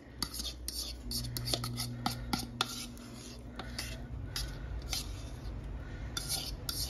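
Metal fork scraping thick cornbread batter out of a plastic mixing bowl into a glass baking dish: a string of short scrapes and light clicks of the fork, over a low steady hum.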